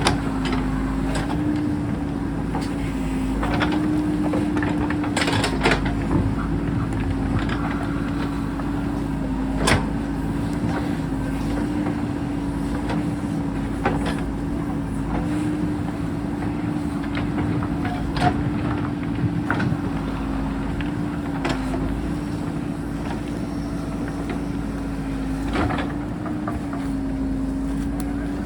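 JCB backhoe loader's diesel engine running steadily, its pitch wavering slightly, with several sharp knocks at intervals.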